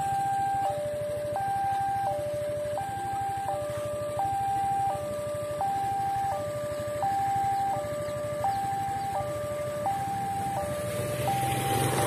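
Automatic level-crossing warning siren sounding a steady two-tone wail, alternating evenly between a lower and a higher pitch, each held for under a second. The siren is working normally, with a smooth tone rather than a hoarse one, and signals that the crossing is active for an oncoming train.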